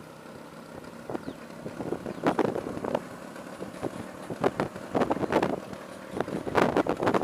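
Bajaj Classic scooter's two-stroke engine running while it is ridden in second gear, with wind on the microphone and several short, louder bursts over the steady engine noise.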